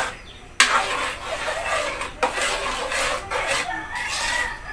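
A spoon stirring thick spaghetti sauce in a metal pan, scraping against the pan's bottom and sides. It starts suddenly about half a second in and goes on unevenly.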